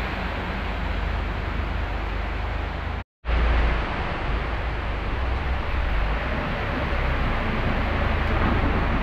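Steady rain hiss with the low rumble of vehicles passing on a wet road, a car and then a truck. The sound drops out for a moment about three seconds in.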